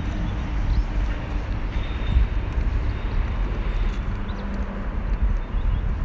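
Steady rumble of road traffic on the highway overpass overhead.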